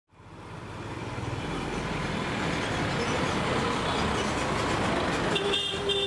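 Road traffic noise fading up from silence, engines running. Near the end a vehicle horn starts honking and holds one steady note.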